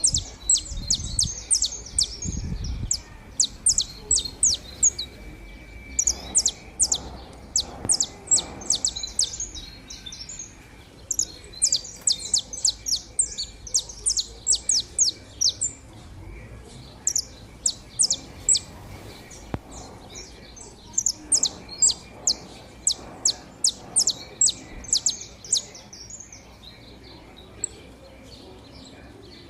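Saffron finches singing: long runs of rapid, sharp chirping notes, several a second, broken by short pauses.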